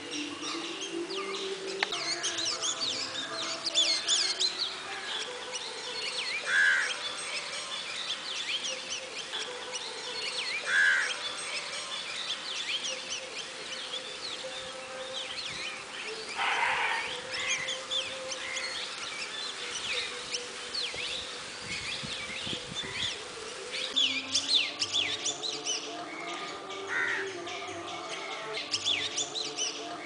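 Black drongo fledgling begging to its parent for food with repeated "kee kee" calls: a busy run of quick high chirps, with a few louder, lower calls standing out about 7, 11 and 17 seconds in and again near the end.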